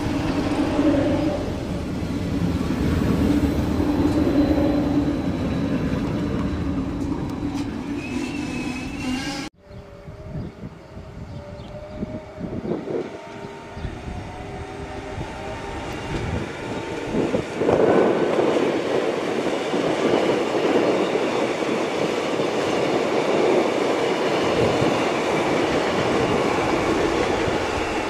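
Renfe electric multiple-unit commuter trains running past on the line: a steady electric traction hum over wheel and rail noise, cut off abruptly about nine seconds in. After the break a quieter, slowly rising motor whine is heard as another train moves off, and the sound swells loud again as a train runs by.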